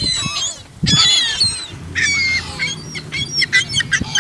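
A flock of birds calling over each other in many short, high-pitched calls as they crowd in for thrown bread. A low steady hum joins in about halfway through.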